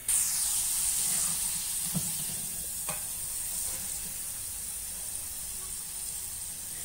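Batter-coated potato fries sizzling in hot oil in a deep-frying kadai, a steady hiss that is loudest at first and eases off over the first few seconds. The fries are fried crisp and ready to come out. Two faint knocks about two and three seconds in.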